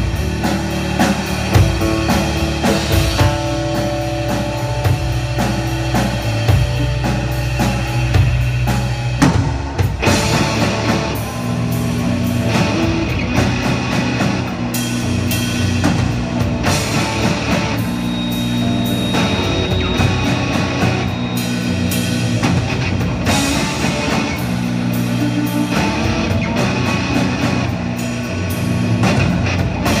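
Live rock band playing: amplified electric guitar, electric bass and a drum kit. The music goes straight into a new section about ten seconds in.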